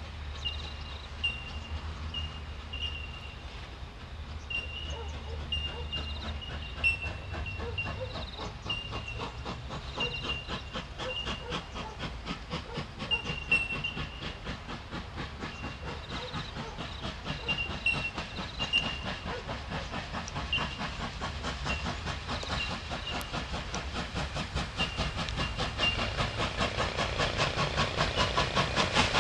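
Steam locomotive working under steam with a hiss and a fast, even beat of exhaust chuffs, growing louder over the last few seconds as it approaches.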